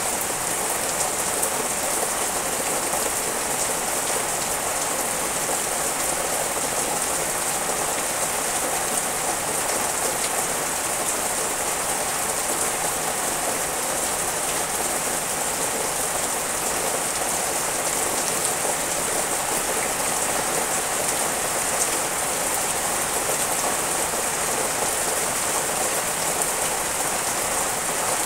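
Steady rain falling on the leaves of trees and garden plants: an even, unbroken hiss that holds at the same level throughout.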